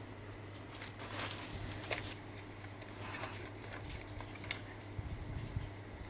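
Handling of a paperboard knife box and a leather pouch: rustling and scraping with a couple of sharp clicks, as the box is opened and a Victorinox Swiss Army knife is slid out. Soft knocks near the end, over a steady low hum.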